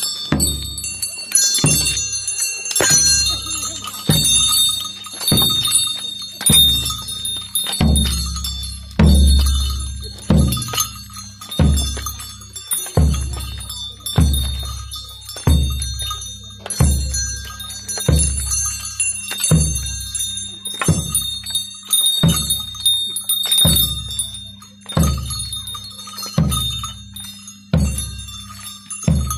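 Large hand-held drum struck in a slow, steady beat, about one stroke every second and a quarter, with bells jingling continuously over a steady low drone.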